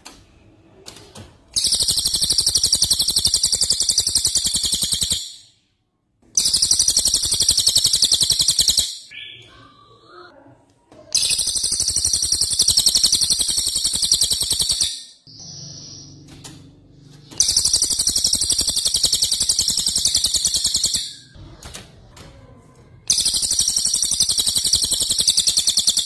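Songbird giving a loud, high, rapid rattling trill in five bursts of about three to four seconds each, with short pauses between them.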